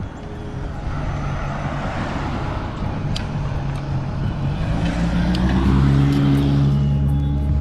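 A car passing on the road, its noise swelling and fading, with a low steady hum that comes in about halfway and grows louder.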